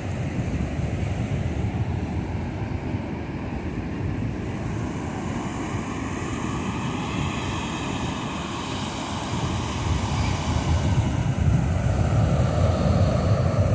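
Ocean surf breaking and washing up over the sand, with wind buffeting the microphone as a low rumble; it grows louder near the end.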